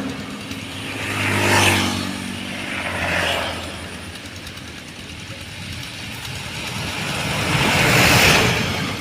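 Old tractor engine running, its sound swelling and easing off three times, loudest near the end.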